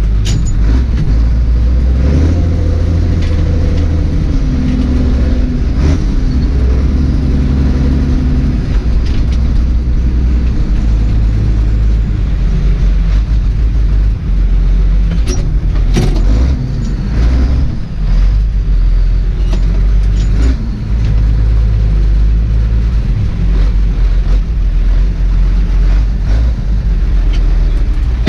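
Zetor Crystal tractor's diesel engine running loud, heard from inside the cab, its pitch rising and falling several times as the revs change. A few sharp knocks come through about halfway.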